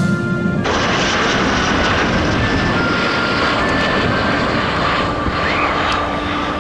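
Twin jet engines of a JASDF F-15J fighter landing: a loud, steady rushing noise as it touches down and rolls along the runway with its nose held high.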